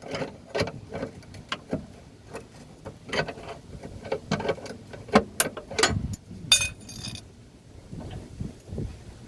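Irregular metal clinks and knocks of hand tools and parts being handled, with a brief high-pitched scrape about six and a half seconds in.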